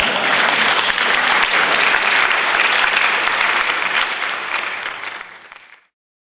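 Crowd applause, steady clapping that fades out over the last second and a half and stops just before the end.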